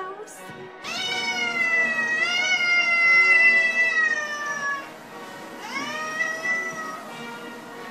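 Domestic cat yowling angrily in two drawn-out calls. The first starts about a second in and lasts about four seconds, rising and then slowly falling in pitch; a second, shorter yowl comes later.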